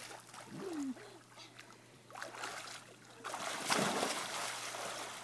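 Pool water splashing as a child swims face-down and kicks, the splashing loudest from about three seconds in.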